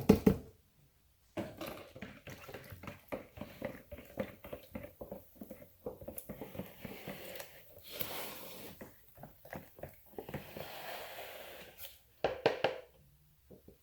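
Kitchen utensils and containers being handled: irregular clinks, knocks and scraping, with a louder clatter at the start and another near the end.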